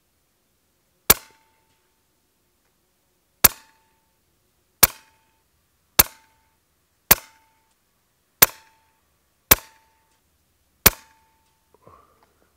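Daystate Red Wolf .22 PCP air rifle firing JSB KO slugs: eight sharp shots about a second and a half apart, each with a short ringing tone after the crack.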